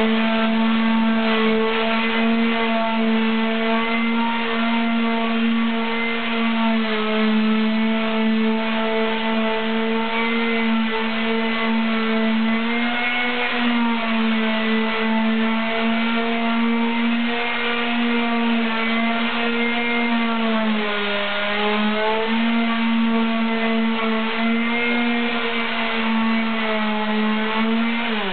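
Electric pad sander running steadily against a wooden board, a constant motor hum that dips briefly in pitch now and then. It winds down as it is switched off at the very end.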